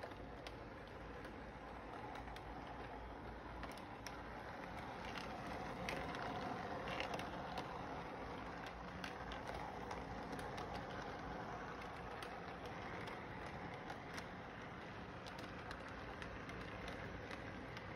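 Electric model train running around its track loop: a steady rattling run of the motor and wheels with many small clicks as the wheels cross the rail joints. It grows somewhat louder about six seconds in as the cars pass close by.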